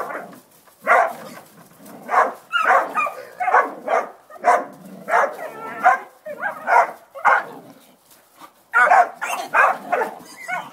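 Hog-dog pup barking at a penned hog, short sharp barks coming one or two a second, with a brief pause about eight seconds in.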